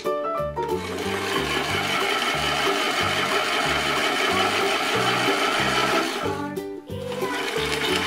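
Toy washing machine running with its drum spinning: a steady whirring noise that starts about a second in, breaks off briefly near the end and starts again, over background music with a steady beat.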